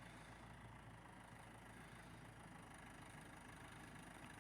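Faint, steady engine idle with a low hum.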